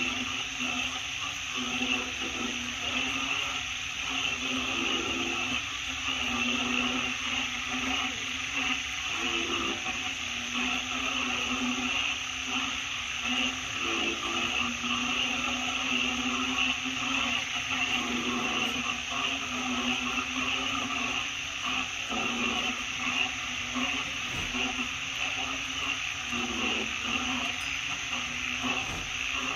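Steady forest ambience: a continuous high insect drone, with a lower droning hum beneath it that swells and fades every second or two.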